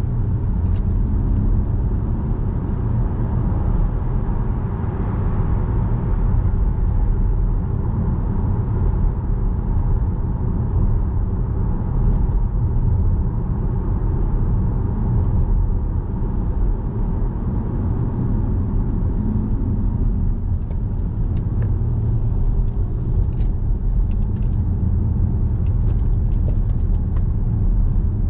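A car being driven on the road, heard from inside the cabin: a steady low rumble of road and engine noise.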